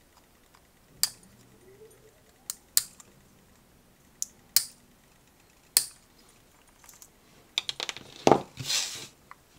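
Side cutters snipping the support struts off a 3D-printed resin ejection seat. About six separate sharp snips are heard, then a rapid cluster of clicks and a short rustle near the end.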